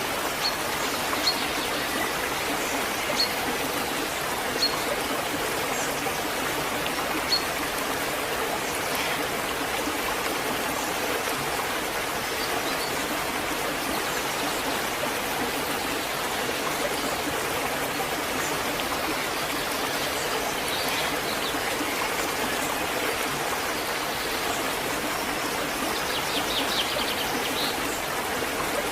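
Waterfall: water falling and rushing steadily, with no change in level.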